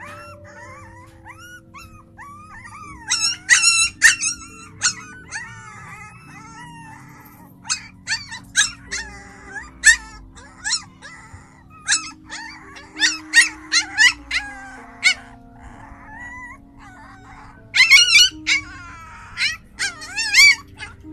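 Puppies yipping and whining in short, high-pitched cries, loudest in clusters about three seconds in, through the middle, and near the end. Background music with held notes plays underneath.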